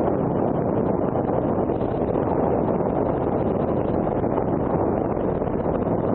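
Steady wind rush buffeting an action camera's microphone on a BMW F800ST motorcycle cruising at about 95 km/h, with the bike's running and road noise blended in underneath. It stays even throughout, with no distinct engine note standing out.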